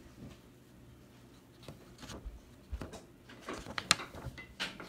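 Scattered light clicks and taps of objects being handled, with the sharpest click a little before the end, over a faint steady low hum.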